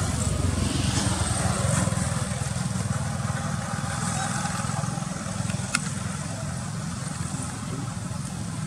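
A motor engine running steadily, with a single sharp click a little over halfway through.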